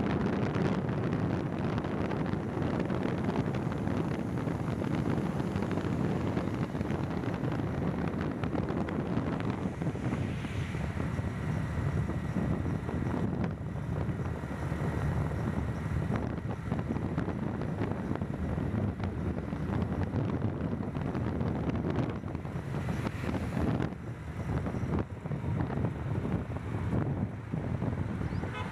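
Wind buffeting the microphone over the steady rumble of a vehicle travelling at highway speed.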